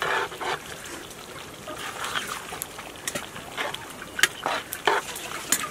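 Metal spoon stirring a pot of potato greens cooking over a wood fire, with scattered sharp clicks of the spoon against the pot.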